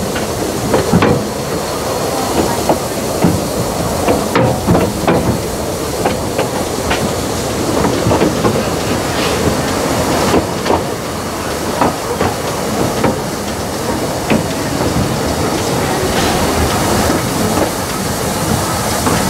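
A 2 ft narrow-gauge steam train running, heard from an open-sided carriage: a steady rumble and clatter of the carriage wheels on the rails with irregular clicks and knocks, and the hiss of the steam locomotive working ahead.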